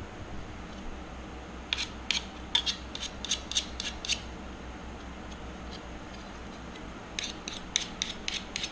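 Hand edge-deburring tool scraping along the edge of a thin aluminium sheet plate in quick strokes, removing the burrs left by cutting. The strokes come in two runs of about ten each, the first starting near the second second and the second near the end.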